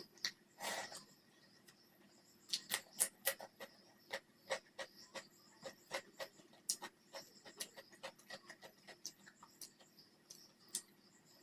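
Close-miked eating sounds: wet chewing and mouth clicks at an irregular few a second, with a short noisy burst just under a second in.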